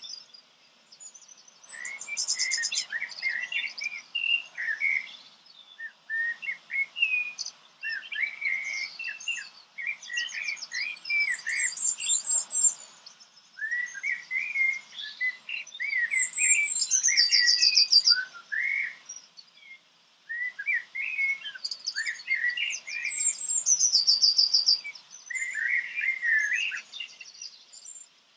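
Songbirds singing: phrases of quick, high chirps and fast trills, broken by short pauses every few seconds.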